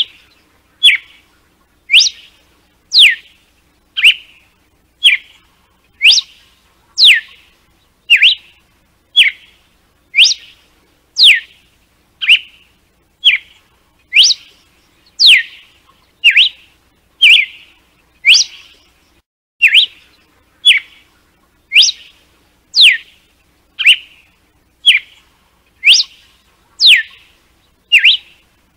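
Red-cowled cardinal (galo-de-campina) singing its "açoite" (whip) song: short, sharp notes about once a second, alternating a steep falling whistle with a shorter, lower note.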